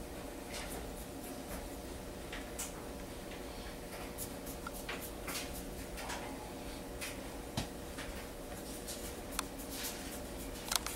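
Comb scratching through hair as sections are combed and teased, faint short scratchy strokes at irregular intervals over a low steady hum.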